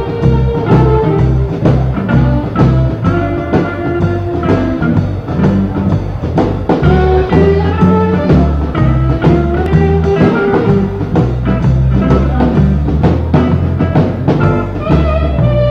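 Instrumental passage of a blues band recording: electric guitar lines over a bass line and a drum kit keeping a steady beat.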